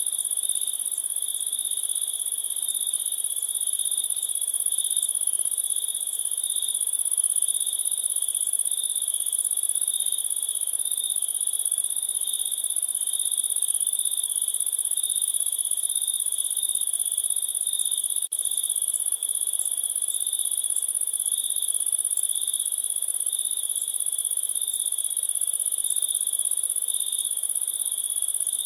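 A steady chorus of crickets: a pulsing chirp sits under a continuous high-pitched trill, with a momentary dip about two-thirds of the way through.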